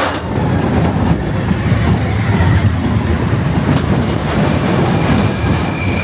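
Expedition Everest roller coaster train running along its track with a loud, steady rumble.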